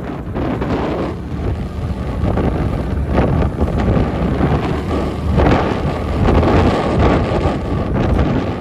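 Wind buffeting the microphone on a moving motorcycle, over a steady low rumble of engine and road noise.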